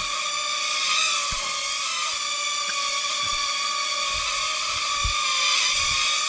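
Motors and propellers of a small four-propeller toy UFO aircraft whining at a steady high pitch as it flies, the pitch wavering slightly now and then, with a few soft low thumps.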